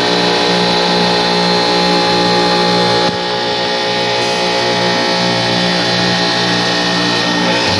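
Supermarket refrigeration rack's compressors running in the machine room: a loud, steady mechanical hum with a strong buzzing drone.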